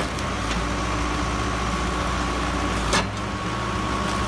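Hydraulic wood-splitting machine running steadily with a low hum and a thin steady whine. One sharp crack comes about three seconds in as wood splits apart.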